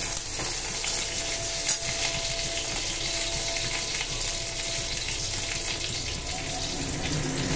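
Chopped garlic sizzling in a little oil in a metal kadai over a medium gas flame: a steady frying hiss, stirred with a spatula at the start.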